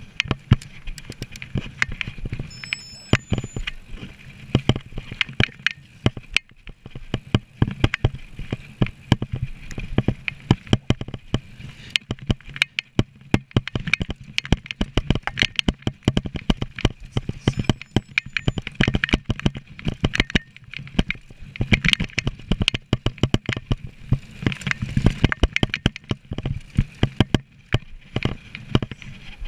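Mountain bike ridden fast over rough trail: a dense, irregular run of sharp knocks and clicks from the bike rattling over the bumps, over steady tyre and wind noise.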